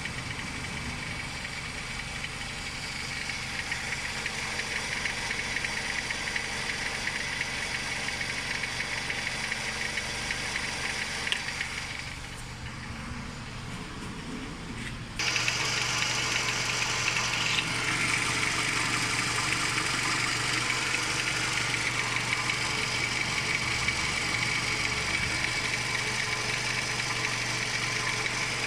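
Toyota Camry 2.4-litre four-cylinder engine idling, with a knock from the accessory drive belt tensioner, the sign of a worn tensioner. The sound steps up suddenly and gets louder and brighter about halfway through.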